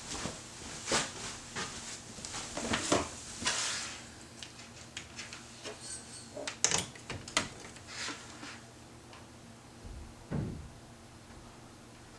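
Irregular clicks, taps and knocks of handling, with a couple of low thumps, about three seconds in and again near the end.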